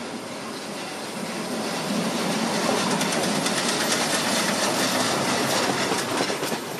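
Harz narrow-gauge Mallet tank steam locomotive 99 5906-5 rolling slowly past close by, its wheels and running gear clattering on the rails. It grows louder about two seconds in as it draws alongside.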